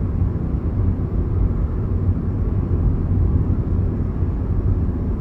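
Car driving along at speed: steady low rumble of road and engine noise heard from inside the cabin.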